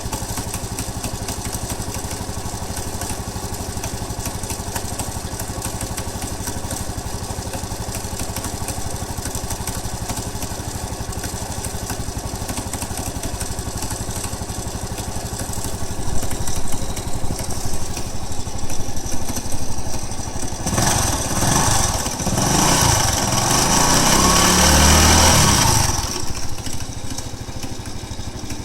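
Honda Cross Cub's single-cylinder engine idling with an abnormal noise from inside the engine, which the owner thinks sounds like the cam chain but isn't sure. In the second half the throttle is blipped several times and then held open for a few seconds before dropping back to idle.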